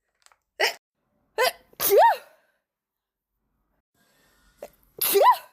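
A woman sneezing in a fit: two short, sharp bursts, then a loud voiced "achoo" that rises and falls in pitch about two seconds in. After a short pause comes another loud "achoo" near the end.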